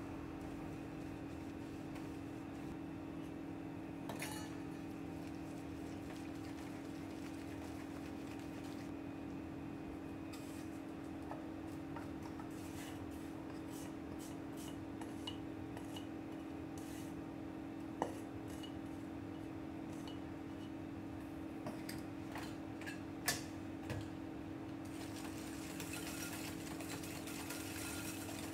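A spatula stirring and scraping butter, sugar and beaten egg in a glass bowl, with scattered light clicks and taps of utensil and a stainless bowl against the glass, the sharpest about two-thirds of the way through. Near the end the stirring turns faster and more continuous. A steady low hum sits underneath.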